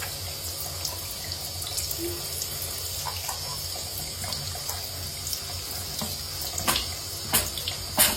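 Steady running water, with a few sharp knocks in the last two seconds.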